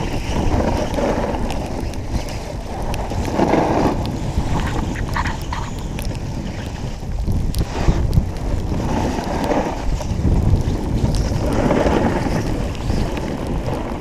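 Wind buffeting the microphone of a skier going fast downhill, with the rush of skis over snow swelling every few seconds.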